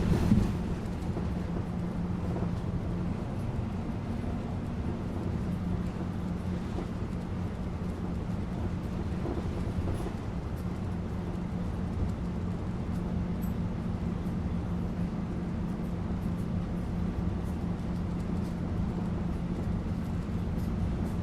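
Bus engine hum and road noise heard from inside the bus: a steady low drone with a constant humming tone, after a short louder rumble right at the start.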